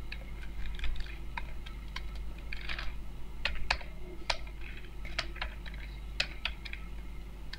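Computer keyboard typing: irregular keystroke clicks, some in quick runs, as code is entered.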